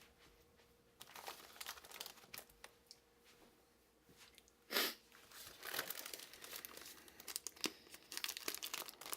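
Shipping packaging being handled and torn open, crinkling and tearing in short bursts. There is one louder sudden rip about halfway through, then steady crackling.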